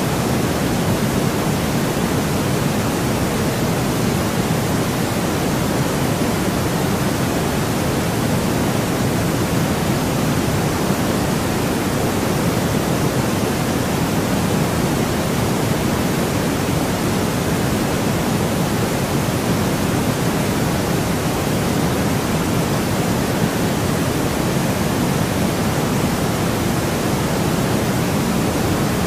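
Steady white noise played as a sleep sound: an even, unbroken hiss with most of its weight low down.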